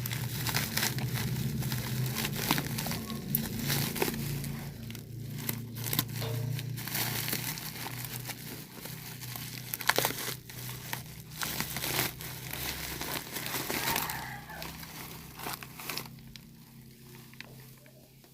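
Plastic packaging and bubble wrap crinkling and rustling with irregular crackles as a parcel's contents are unwrapped by hand, dying away over the last couple of seconds.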